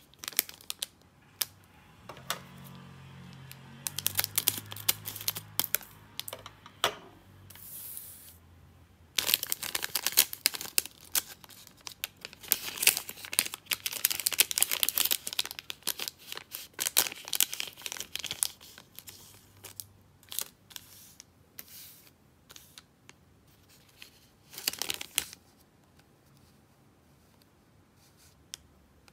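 Packet wrapper of a trading-card gum pack crinkling and tearing as it is opened by hand, in a long run of crackling rustles with a last burst near the end.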